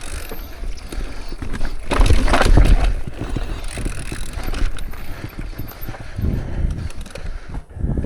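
Mountain bike riding over a rocky trail: tyres rolling and knocking on rock while the bike rattles and clatters, with a louder stretch of rumble and rattling about two seconds in.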